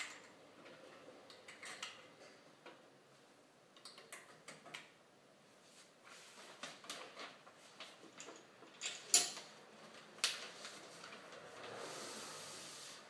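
Handling noises from loading sealing film into a cup-sealing machine: scattered light clicks and knocks of the reel and machine parts, two sharper knocks a little after halfway, and a rustling hiss of the film being pulled near the end.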